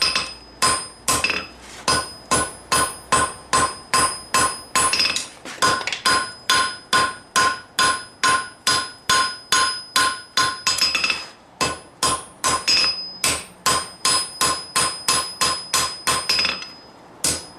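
Blacksmith's hand hammer striking hot steel on an anvil in a steady rhythm, about two to three blows a second, each blow leaving a bright metallic ring from the anvil; the hammering pauses briefly twice. The blows are drawing out the tang at the back of a forge-welded san mai blade.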